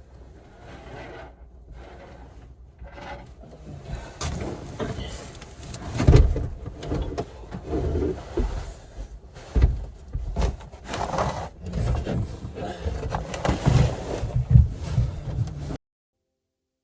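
Irregular thumps, knocks and scrapes of someone climbing onto and moving about on a wooden plywood structure, handling boards. The sound cuts off suddenly just before the end.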